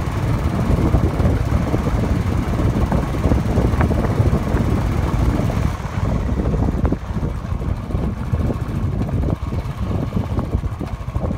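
Wind buffeting the microphone of a moving bike, a heavy, steady low rumble mixed with road noise. About halfway through the hiss thins out, and scattered knocks come in as the ride crosses rougher ground.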